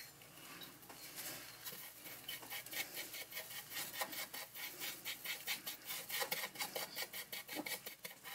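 Small plastic spoon scraping and dabbing a gritty boric acid paste onto fine wire wool inside a plastic zip bag: a run of faint, quick scratchy strokes, several a second.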